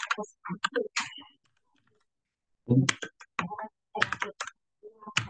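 Typing on a computer keyboard: short bursts of quick keystrokes with pauses between them.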